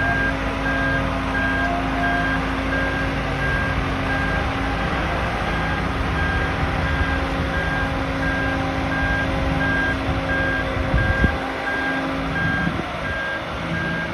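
Marine Travelift boat hoist driving with a sailboat hanging in its slings: its engine runs steadily under a travel alarm giving steady repeating beeps. A couple of knocks about eleven seconds in.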